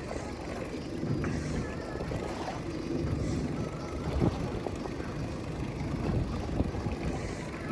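Boat engine running steadily with a low rumble, with a few light knocks about four seconds in and again near six and a half seconds.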